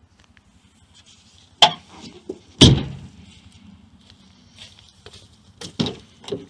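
A few sharp knocks and thumps over a faint low hum, the loudest a heavy thump about two and a half seconds in.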